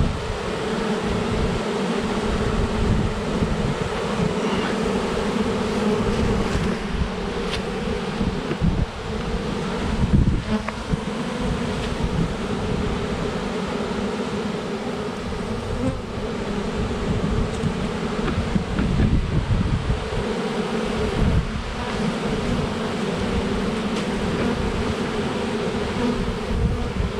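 A swarm of honey bees buzzing around a hive box: a steady hum of many wings, as the swarm settles and moves into the box.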